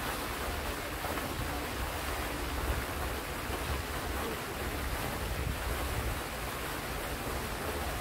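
Steady rushing and splashing of a pond fountain's tall water jet and its spray falling back onto the water, with wind buffeting the microphone as an uneven low rumble.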